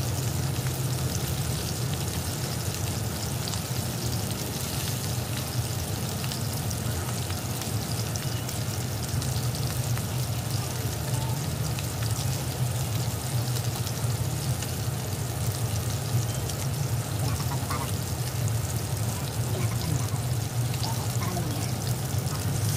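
Pork belly and garlic cloves frying in oil in a wok: a steady sizzle with scattered small crackles, over a steady low hum.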